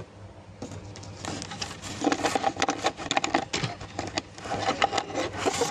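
Handling noise: a run of clicks, knocks and rubbing as the phone and things on the repair bench are moved by hand, busiest from about two seconds in.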